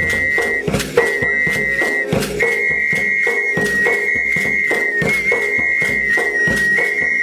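Background music: a steady beat under a high, held, whistle-like melody.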